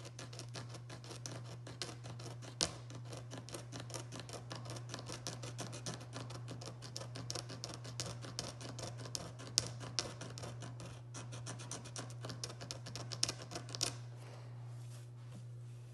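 Razor blade scraping the celluloid binding along the edge of a 1971 Gretsch guitar body, many quick rasping strokes that stop about two seconds before the end. A steady low hum runs underneath.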